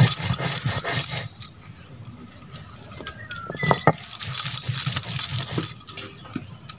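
A cylindrical stone roller is rubbed back and forth over a flat grinding stone (sil-batta), crushing grated raw mango into chutney paste. It makes a scraping rasp in repeated strokes, with the grinder's bangles clinking now and then.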